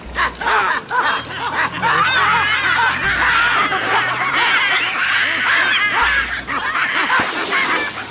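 Monkeys shrieking and chattering in alarm, many short high cries rising and falling over one another. A hissing rush comes in near the end.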